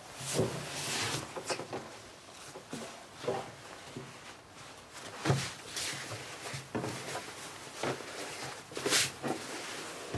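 A large white cloth sheet being folded and smoothed by hand on a wooden table: irregular rustles and swishes of fabric, with a few soft knocks as it is pressed onto the table.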